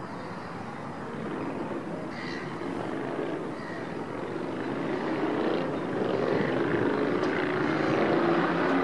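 A distant engine drone that grows gradually louder, with a low hum showing through in the second half.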